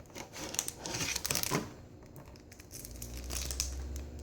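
Foil booster-pack wrappers crinkling as the packs are handled and counted out, followed by a steady low rumble from about three seconds in.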